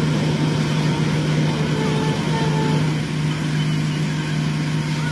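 Heavy machine engine running steadily under load, a constant deep hum with a wash of mechanical noise, as the stuck excavator is being recovered.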